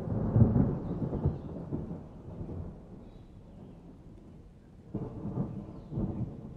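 Thunder rumbling in a summer storm. A loud low peal crashes at the start and rolls away over a few seconds, and a second rumble follows about five seconds in, with rain falling underneath.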